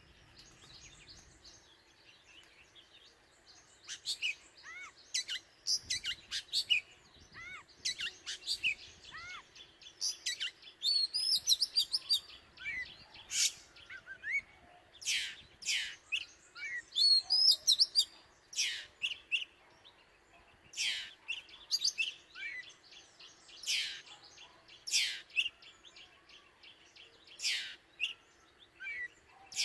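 Oriental magpie-robin singing: a long run of varied whistles, chirps and sharp sweeping notes in quick phrases with short pauses between them, starting a few seconds in.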